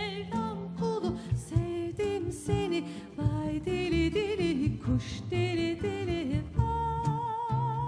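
A Turkish folk song (türkü) performed live: a woman sings ornamented, bending melodic lines over plucked upright bass and band accompaniment, then holds a long note with vibrato near the end.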